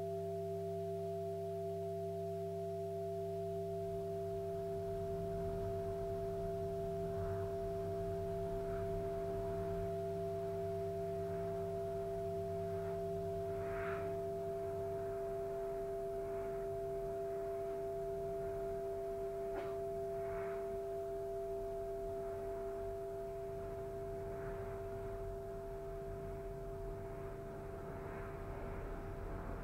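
Looped electronic drone of two steady, pure held tones over lower humming tones, with faint scattered taps and clicks.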